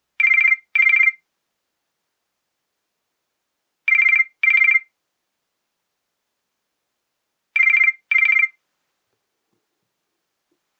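Nokia E63 ringtone in the style of an old telephone bell: three double rings, each a pair of short rings, spaced a little under four seconds apart.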